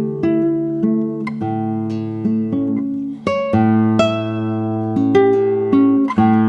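Background music: plucked acoustic guitar notes in a steady picking pattern.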